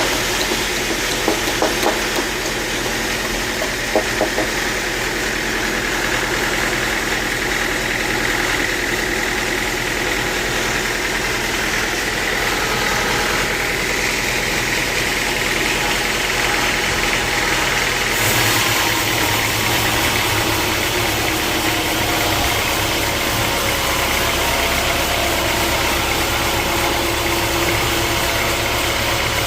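Sawmill machinery running steadily, with a few sharp knocks in the first few seconds. About two-thirds of the way through the drone deepens and grows fuller.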